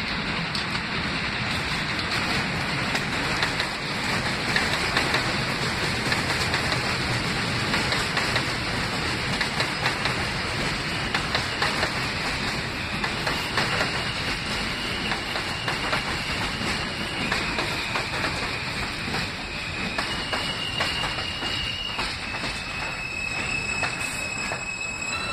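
New York City Subway train running on an elevated steel structure, its wheels clattering over the rails with many sharp clicks. In the second half a thin, high whine joins in and steps in pitch a few times.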